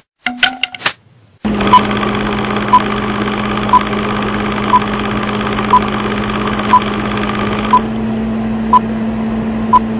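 A few short clicks, then a steady mechanical hum starts about a second and a half in, with a sharp tick about once a second on top of it.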